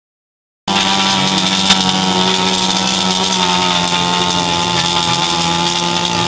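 Gasoline chainsaw engine running steadily at a constant high pitch, starting abruptly just under a second in, with one brief click partway through.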